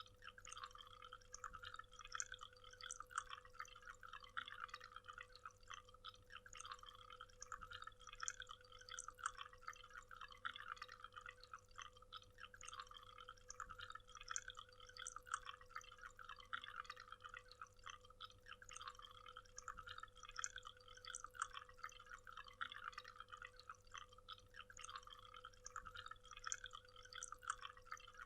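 Faint, steady splashing and trickling of water falling at a waterfall, with a faint steady hum beneath it.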